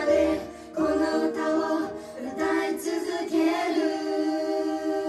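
A dance-and-vocal pop group singing over backing music, several voices together, holding one long chord through the second half.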